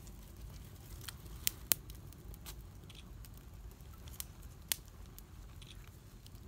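Small fire of dry stalks and twigs crackling, with a few scattered sharp snaps, the loudest pair about a second and a half in, over a low steady rumble.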